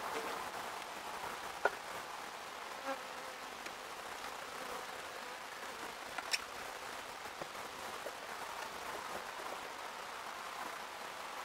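Honeybees buzzing around an open hive, a steady hum, with a few short sharp clicks of a metal hive tool against the wooden hive boxes.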